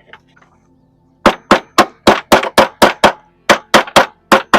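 Quick, even series of sharp knocks, about four a second, beginning a little over a second in, with a brief pause midway: hammering or striking on the Humvee's body panel.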